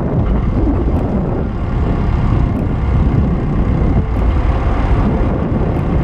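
Wind buffeting the microphone: a steady, loud, low rumble that rises and falls without a pitch.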